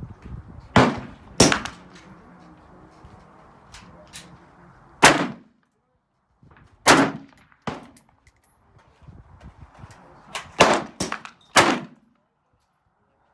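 M16 rifle firing single shots: about nine sharp reports at irregular intervals, with three in quick succession near the end.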